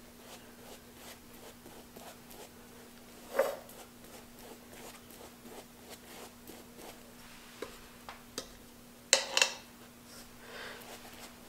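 Paintbrush brushing wood sealer onto a fabric hat: a run of soft, quick strokes, with two louder scrapes of handling about three seconds in and near the end. A faint steady hum sits underneath.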